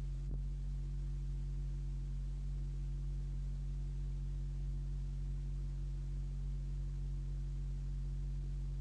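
Steady low electrical hum with a light hiss on an old film soundtrack, with no music or voice; a faint click just after the start.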